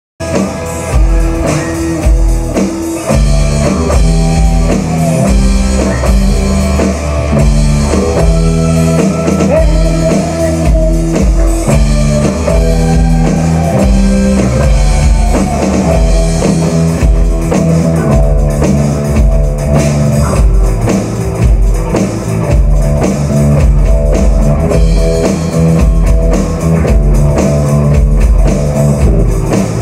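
Live rock jam: electric bass guitar and drum kit playing together, with guitar lines that bend up and down in pitch. It starts suddenly and runs loud and steady, with no singing.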